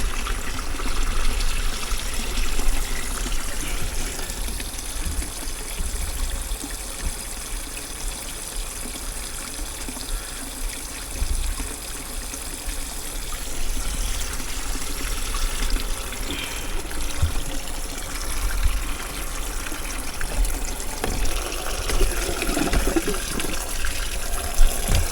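Water splashing and trickling steadily in a mini aquaponics set-up, driven by a submersible Altman AT-103 pump with its bypass opened a little more.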